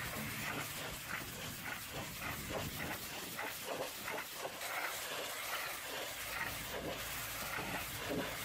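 High-pressure washer spraying the metal side panels of a box truck: a steady hiss of water with quick, uneven pulses as the jet sweeps across the panels. A low steady hum comes in about six seconds in.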